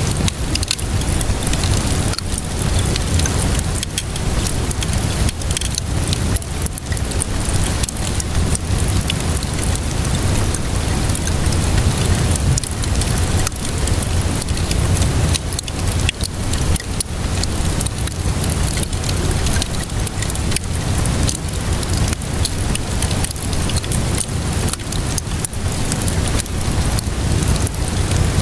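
Steady rainfall mixed with a crackling wood fire: an even hiss of rain over a low rumble, dotted throughout with many small sharp pops and snaps.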